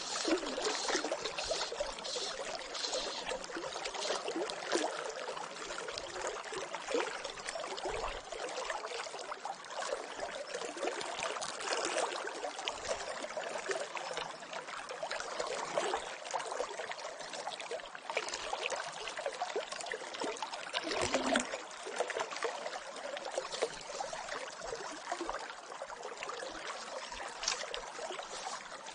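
South Platte River current running steadily close by, a continuous watery rush with many small splashes and trickles.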